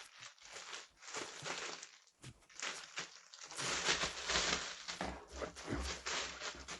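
Rustling and crinkling of packaging as items are handled and pulled out of a mystery box, coming in irregular bursts with brief pauses.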